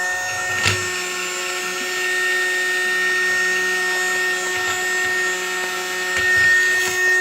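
Mini Henry vacuum cleaner's small motor running with a steady, high whine, with a single click under a second in.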